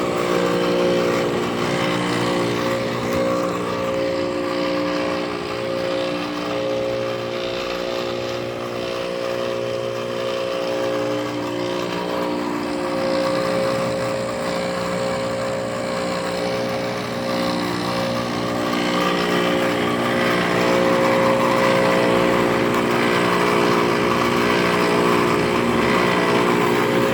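1997 Ruud central air-conditioner condenser unit running with a loud, steady mechanical hum and drone. About two-thirds of the way through a rougher, hissing edge grows louder. The sound is abnormal for the unit and comes from a worn-out condenser that no longer cools well.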